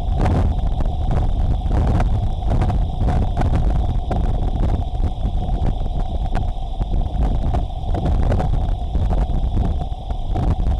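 Tropical-storm squall: strong gusting wind buffeting the microphone as a heavy low rumble, with driving heavy rain and scattered light ticks.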